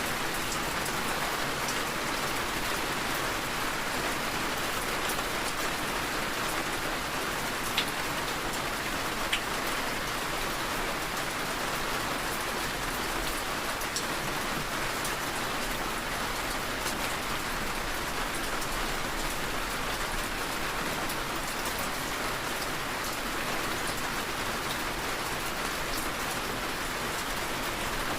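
Steady rain falling, an even hiss with a few louder drop ticks.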